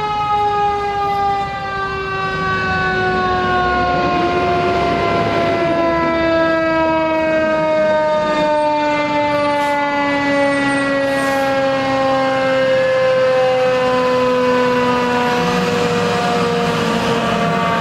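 Fire truck siren winding down, one tone with overtones sliding slowly lower in pitch, the long coast-down of a mechanical siren as the apparatus arrives on scene. A fainter wail rises and falls behind it, and near the end a low rumble from the truck's engine comes in as the truck pulls up.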